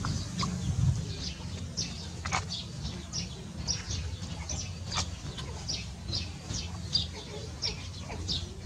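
Birds chirping: short, high calls repeated about twice a second, over a low steady hum.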